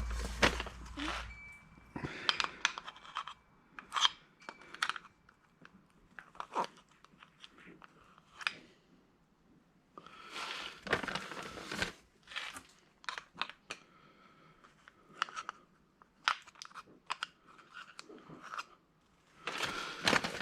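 Irregular scraping, clicking and rustling, short strokes with pauses between them, as old grease is dug out of an electric angle grinder's gear housing.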